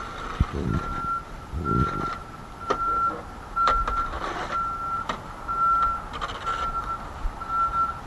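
A reversing vehicle's backup alarm beeping a steady single tone about once a second, each beep about half a second long. A few sharp knocks sound in between.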